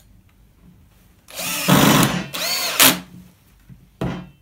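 Cordless drill-driver driving a screw into a 2x4 timber frame corner: the motor runs for about a second and a half, its pitch rising and falling as the screw goes in. A single knock follows near the end.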